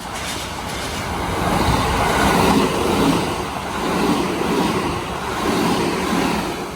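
Kintetsu electric train passing the level crossing: a noisy rumble that builds over about two seconds, holds with several swells as the cars go by, and falls away near the end.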